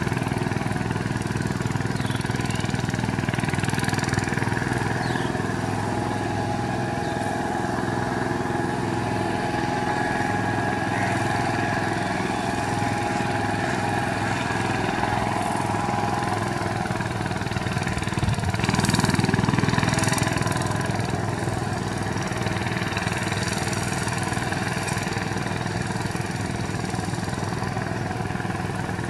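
VST Shakti 130 DI power tiller's single-cylinder diesel engine running steadily under load as it drags a mud leveling board through a flooded paddy, growing briefly louder about two-thirds of the way through.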